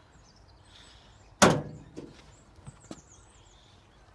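Servis Sapphire 6055 washing machine door banging: one loud clunk about a second and a half in that rings briefly, then a few light knocks.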